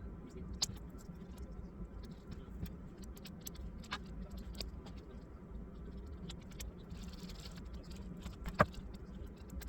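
Scattered small clicks and taps from handling laptop parts and tools during a motherboard replacement, with one louder click near the end, over a steady low hum.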